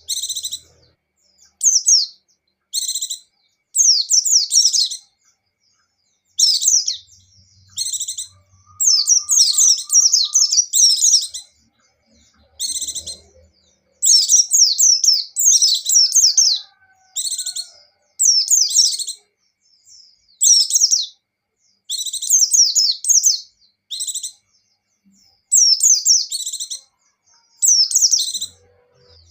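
White-eye (pleci) in full song: a steady run of high, rapid twittering phrases, each made of quick falling notes and lasting up to about two seconds, with short pauses between them.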